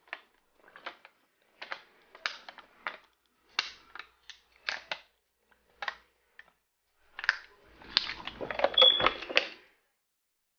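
A person gulping fast from a plastic water bottle: a run of quick swallows, each a short click, roughly one every half second. About eight seconds in comes a louder, noisier burst lasting under two seconds.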